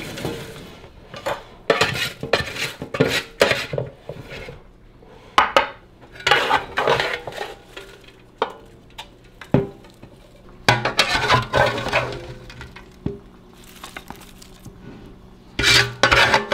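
A utensil scraping and clattering against an air fryer basket as roasted vegetables are scooped out onto a plate, in a series of short bursts.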